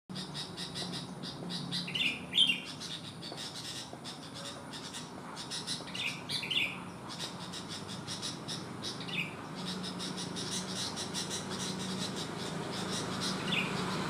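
Sooty-headed bulbul (kutilang) calling in short phrases of a few quick notes, four times, every three to four seconds. The phrase about two seconds in is the loudest.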